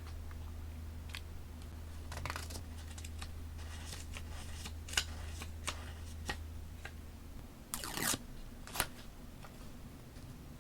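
Paper and stationery being handled for a scrapbook journal: scattered rustles and sharp little clicks, with a longer rasp about eight seconds in and a low background hum that stops partway through.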